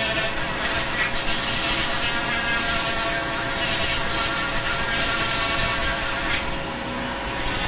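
Handheld rotary carving tool spinning a 1/2-inch by 2-inch sanding drum against wood, with a shop vacuum drawing air through the dust-collection hose at the bit: a steady whine over a rushing hiss. The hiss drops for about a second near the end.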